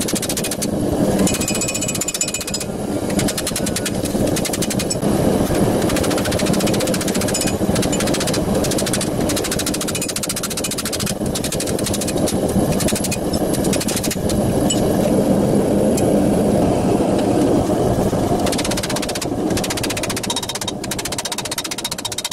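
Rapid, steady hammer blows on a steel gauntlet plate held over the edge of an anvil, as the plate is forged and drawn in at the waist.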